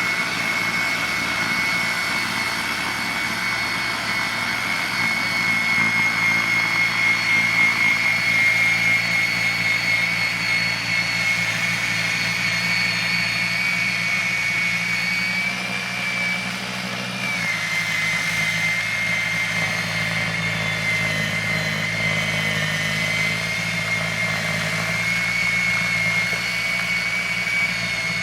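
EGO electric two-stage snow blower running with a steady high electric-motor whine over a low hum. About two-thirds of the way through the whine dips briefly in pitch and loudness, then steadies again as it works through wet, slushy snow.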